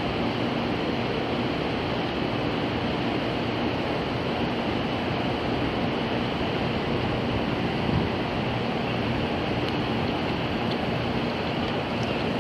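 Steady rushing noise with a faint low hum from a standing electric limited express train's onboard equipment running while it is readied for service.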